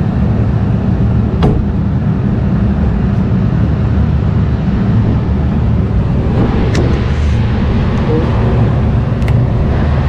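Steady low machinery rumble with a faint hum in it, broken by a few light clicks.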